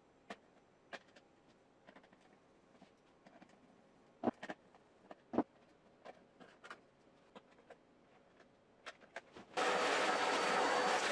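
Scattered clicks and knocks, then about nine and a half seconds in a Corona CD-P6318 dehumidifier starts up and runs with a loud, steady noise and a hum.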